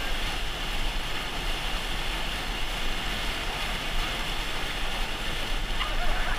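Whitewater rapids rushing and splashing around an inflatable raft, a steady dense rush of churning water with no let-up.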